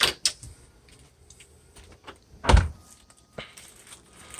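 A car door shutting with a single heavy thump about two and a half seconds in, with a few light clicks around it.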